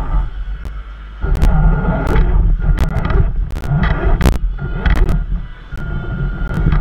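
Radio-controlled rock crawler driving: its electric motor whines in short bursts of throttle over a heavy low rumble, with many sharp clicks and knocks.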